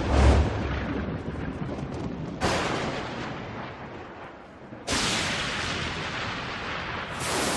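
Intro sound effects of explosion- or thunder-like booms: four sudden hits about two and a half seconds apart, each fading away, the first with the deepest boom.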